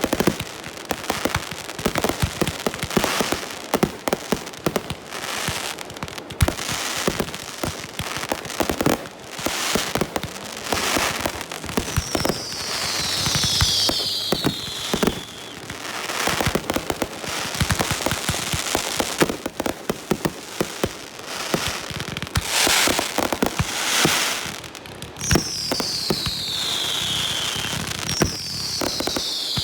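Fireworks going off in quick succession: a steady run of sharp bangs and crackling, with clusters of shrill whistles falling in pitch about halfway through and twice near the end.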